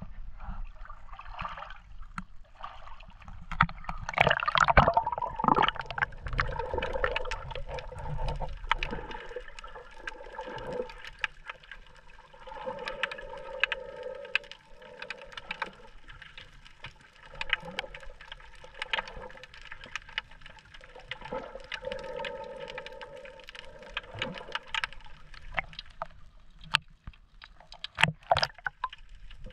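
Water heard through an action camera dipped into the sea: a loud splash-like rush a few seconds in, then muffled underwater sloshing and bubbling with a hollow hum and many sharp clicks and crackles, and a few louder knocks near the end as it breaks the surface.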